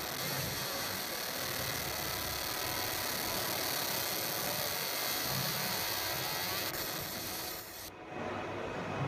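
Fiber laser marking machine engraving a picture into a padlock: a steady high hiss from the beam marking the surface, which cuts off sharply about eight seconds in as the marking ends, leaving a lower background noise.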